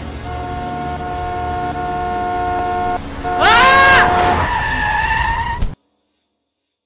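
A vehicle horn blaring steadily, then tyres screeching in a skid about three and a half seconds in, the loudest part. The sound cuts off suddenly into silence a little before six seconds in.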